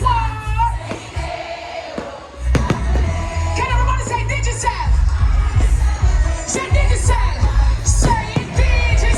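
Loud music over a concert sound system, with a heavy pulsing bass beat and a singing voice over it. The bass drops out briefly about two seconds in, then the beat comes back in.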